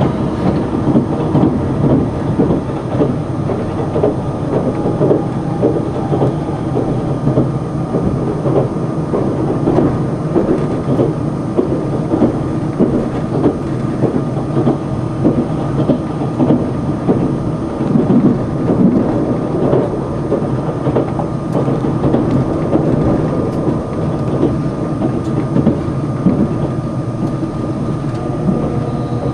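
Cabin noise inside a Sonic tilting limited-express electric train running at speed: a steady rumble and clatter of the wheels on the rails, with a thin steady whine above it.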